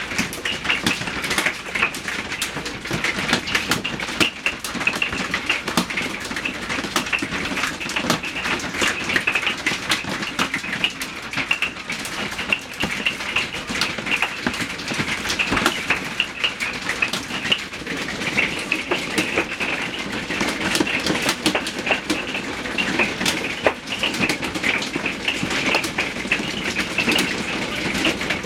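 Hail pelting down: a dense, steady patter of many small, sharp impacts.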